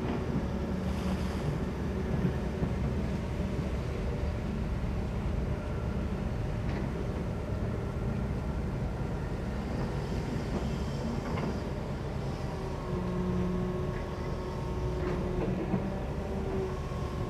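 Kobelco SK200 long-reach excavator's diesel engine running steadily under load as the machine digs. There are a few sharp knocks from about six seconds in, as the bucket works in the stony soil.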